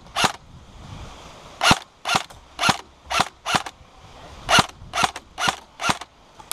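Airsoft rifle firing single shots, about ten sharp mechanical cracks: one near the start, then a string of five and a string of four.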